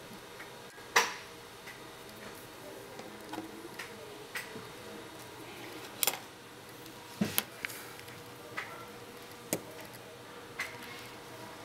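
Scattered light clicks and taps a second or more apart, the loudest about a second in, from a stylus being used on a SMART Podium pen display, over a faint steady hum.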